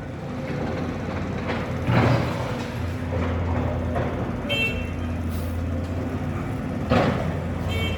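A heavy diesel engine running steadily with street traffic, with two knocks and a short high-pitched tone about halfway through and again near the end.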